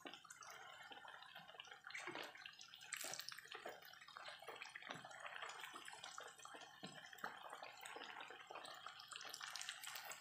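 Batter-coated kepok banana pieces deep-frying in hot oil in a wok: a faint, steady sizzle full of fine crackling, with a few sharper knocks as a spatula turns the pieces.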